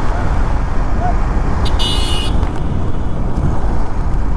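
KTM Duke 390's single-cylinder engine held at high revs while the new Apollo Alpha H1 rear tyre spins on the tarmac in a burnout: a loud, steady rush of engine and tyre noise, with a brief shrill squeal about two seconds in.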